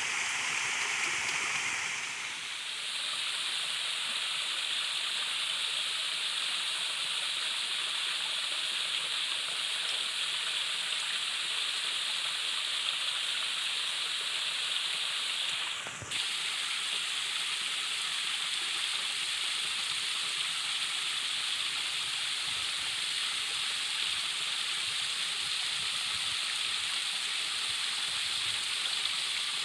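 Steady rushing of a stream flowing over rocks near a small waterfall, with a brief break about halfway through.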